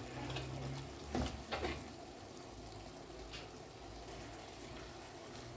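A metal serving spoon scooping thick vegetable stew out of a large aluminium pot, with a few short scrapes and clinks between one and two seconds in and one more near the middle, over a low steady hum.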